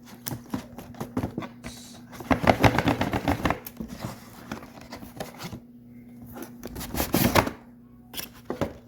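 Fireworks packaging being handled: irregular clicks, taps and crinkling, with two busier spells of rustling, about two seconds in and about seven seconds in.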